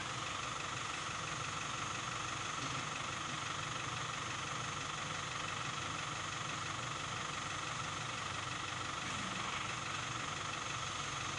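Isuzu truck's diesel engine idling steadily, with no revving.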